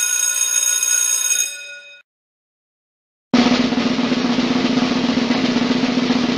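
Drum roll: a continuous, even roll that starts about three seconds in and keeps going. Before it, a ringing tone with many overtones fades out over the first two seconds, followed by a second of silence.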